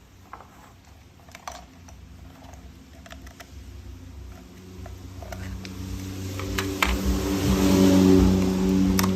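Light plastic clicks of toy parts being handled, then the small electric motor of a battery-powered toy train starting to run, a steady hum that grows much louder over the second half.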